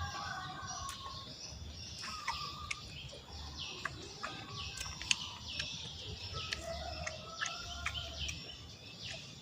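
Birds chirping over and over, short high notes about twice a second, with a few sharp clicks scattered among them; the loudest click comes about five seconds in.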